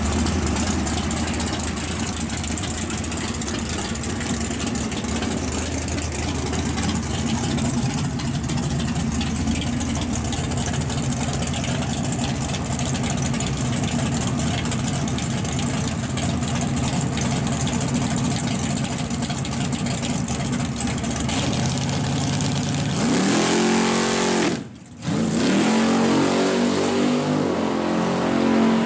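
Drag-race car engine idling steadily on the starting line, then launching at full throttle about 23 s in, its pitch climbing as it pulls away down the strip, with a split-second break in the sound near 25 s.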